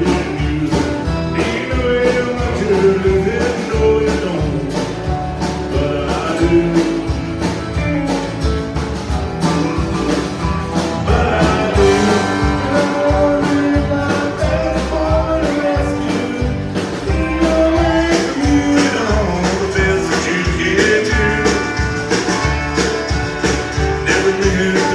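Live country band playing: fiddle, acoustic and electric guitars, bass and drums, with a voice singing.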